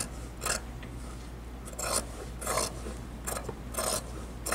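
Scissors snipping through cotton collar fabric with fused interfacing, trimming away excess seam allowance. About six or seven short, crisp cuts come at irregular intervals of roughly half a second to a second.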